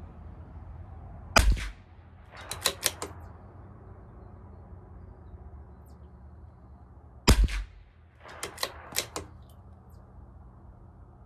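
Two shots from a CZ 457 LRP bolt-action .22 LR rifle firing Eley Tenex Pistol ammunition, about six seconds apart. Each shot is followed about a second later by a quick run of three or four metallic clicks as the bolt is worked to eject and chamber the next round.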